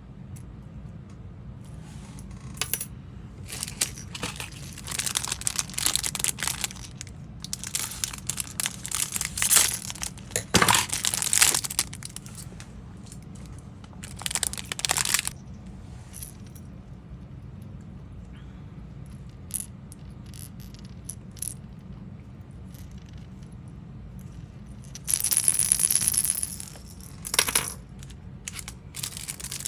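Plastic lure packaging crinkling and rustling in irregular bursts, with small clicks of the hard lures being handled. The loudest bursts come about ten to twelve seconds in and again near the end. A steady low hum runs underneath.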